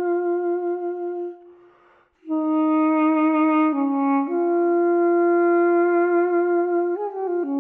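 Background music: a slow solo wind-instrument melody in long held notes, with a brief pause about a second and a half in.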